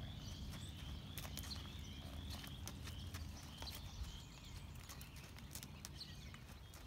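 Kentucky Mountain Saddle Horse stepping sideways on soft dirt in a side pass: faint, irregular hoof steps.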